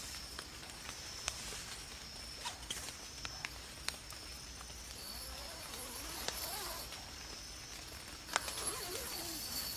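Night insects chirring steadily in a high, even tone, with scattered small clicks and snaps. A faint wavering call rises and falls about halfway through and again near the end.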